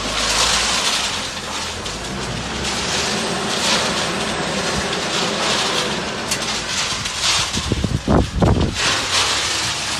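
Self-loading mobile concrete mixer's engine running with a steady, rough mechanical noise, and a few heavy low thumps about eight seconds in.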